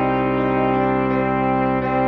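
Sampled computer playback of a concert band score: brass and woodwinds hold full sustained chords, moving to a new chord near the end.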